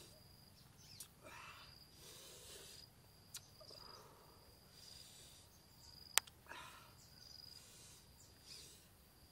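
An insect calling in a steady high-pitched trill that stops and starts, with three sharp clicks, the loudest about six seconds in, and a few soft hissing noises.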